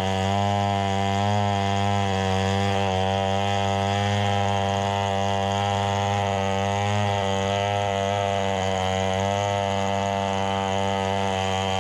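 Chainsaw running steadily at high revs, its pitch wavering slightly as the load changes.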